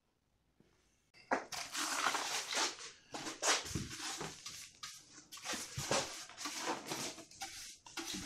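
Hand brush sweeping grey dust and grit across a plywood saw table in a run of strokes, starting about a second in.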